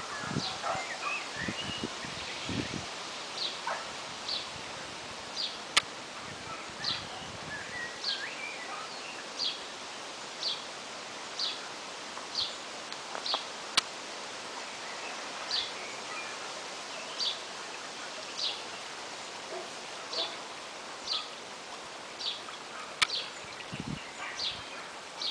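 Birdsong in riverside woodland: one bird repeats a short, high call note about once a second, with other birds chirping in the first few seconds, over a steady background hiss. A few sharp clicks and some low thumps near the start.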